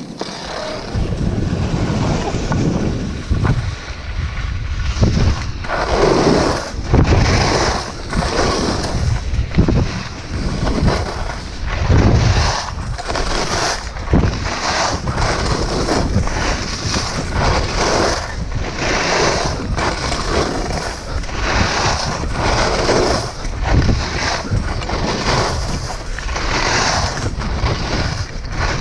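Skis scraping and carving on groomed snow, swelling with each turn about every second or two, over wind rushing across a chest-mounted GoPro's microphone.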